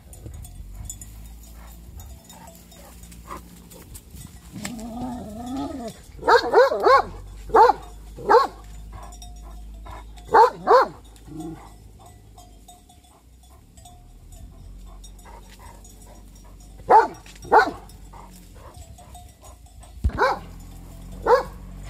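Anatolian shepherd dog barking at sheep through a fence, in short groups of two or three barks with pauses of a few seconds between them.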